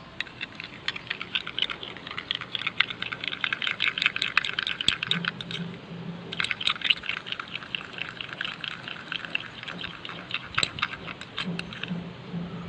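Metal spoon stirring thick red slime in a small glass cup as homemade borax activator is mixed in: rapid sticky clicking in two long runs with a short pause about six seconds in, then a few scattered clicks near the end.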